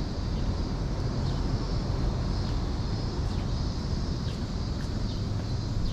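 Cicadas droning steadily in a high, even band, with a few faint short falling chirps over it. A low rumble runs underneath.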